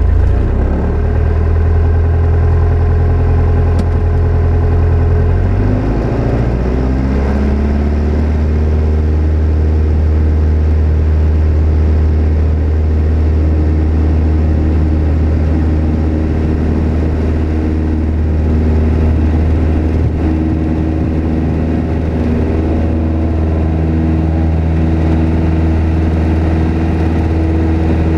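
Single-engine piston aircraft engine and propeller running steadily, heard from inside the cockpit; most likely the Piper Cherokee 180's four-cylinder engine. Its pitch dips and shifts about five to six seconds in, then holds even.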